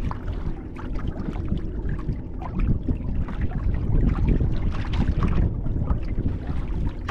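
Wind buffeting the microphone in a low rumble, with water splashing and slapping irregularly against the hull of a wooden Selway Fisher 50/50 sailing canoe moving under sail.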